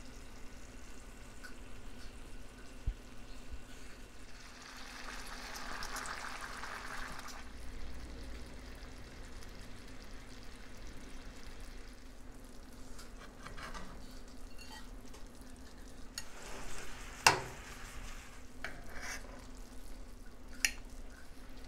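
Creamy lemon sauce simmering and sizzling gently in a cast-iron skillet, with a few sharp clicks of a metal utensil against the pan, the loudest near the end.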